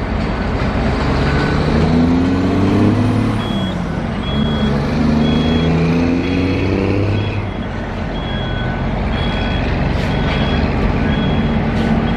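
A heavy construction vehicle's engine running and revving up and down, with a backup alarm beeping steadily from about three seconds in and a second, lower-pitched beeper sounding now and then.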